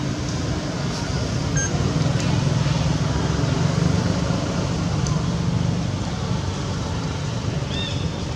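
Steady low rumble of engine or traffic noise, without change.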